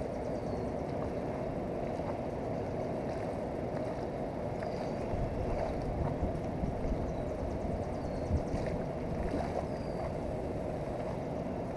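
Steady rush of a flowing river mixed with wind on the microphone, with faint short high chirps now and then.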